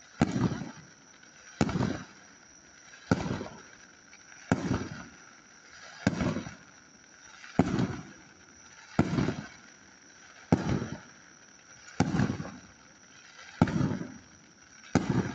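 Aerial firework shells going off in a steady sequence, a sharp bang about every second and a half, each followed by a short low rumble.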